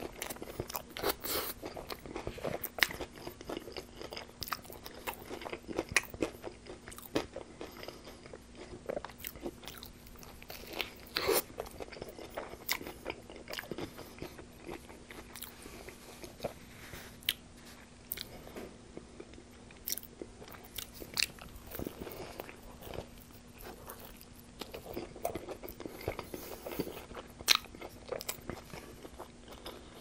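Close-miked biting and chewing of a Twister-style tortilla wrap filled with crispy breaded chicken and lettuce, with irregular sharp crunches as the mouthfuls are worked.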